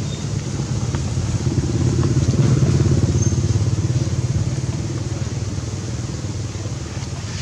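Engine of a passing motor vehicle running steadily; it grows louder about two to three seconds in, then slowly fades.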